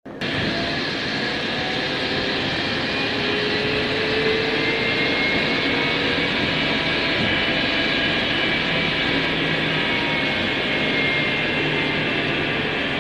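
Road traffic passing close by: a steady rush of engine and tyre noise, with faint engine tones slowly rising and falling as cars and a van go past.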